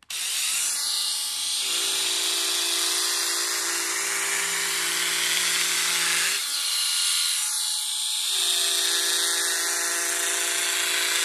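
Braun Silk-épil 9 Flex epilator running steadily as its tweezer head is moved over the skin of a leg, plucking out hairs. It makes a high, even whir, and a lower hum comes in twice, about two and eight seconds in, each time lasting a few seconds.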